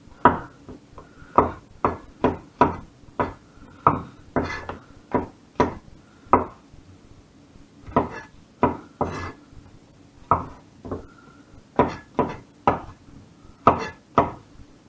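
Cleaver slicing button mushrooms on a wooden chopping board: the blade knocks sharply on the board with each cut, one to two cuts a second, with a few short pauses.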